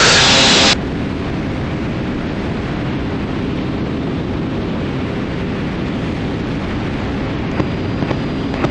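Twin-engine Cessna T310R in climbing flight: a steady rush of engine and airflow noise. It opens with a loud burst of hiss that cuts off sharply under a second in.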